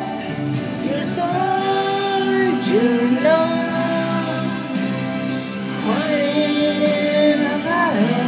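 Slow ballad's closing passage: long held sung notes without words over sustained instrumental accompaniment.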